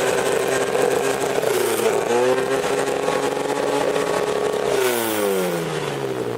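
Classic Mini engine revved hard through a loud competition exhaust and held at high revs, with a short dip about two seconds in, then the revs falling away near the end.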